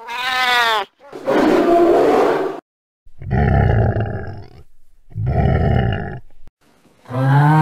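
A series of animal roar and growl sound effects: four separate calls of about a second each, the first with a falling pitch, the rest rougher. A long steady pitched call begins near the end.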